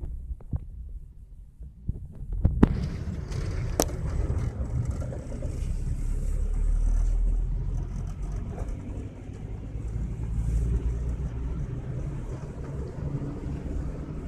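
A car driving, heard from inside the cabin: a steady low engine and road rumble. About two and a half seconds in, after a few sharp clicks, a fuller rushing road and wind noise joins it and holds steady.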